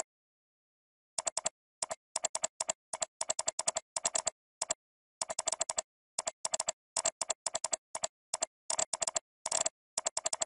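Typing on a computer keyboard: quick key clicks in irregular runs, with a short break about five seconds in and dead silence between the runs.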